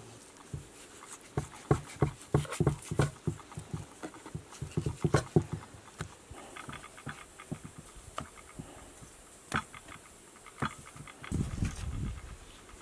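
Kitchen knife cutting raw veal on a wooden cutting board: a run of irregular knocks of the blade striking the board, dense for the first few seconds and then spaced out, with a low rumble near the end.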